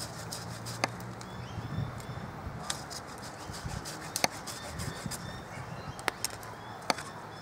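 Pruning tool cutting old rose canes at the base of the bush: about half a dozen sharp, irregularly spaced clicks and snaps of wood.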